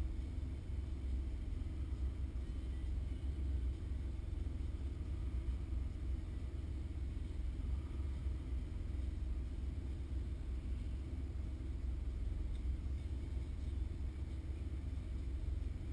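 Car engine idling steadily, heard from inside the stationary car's cabin as a low, even hum.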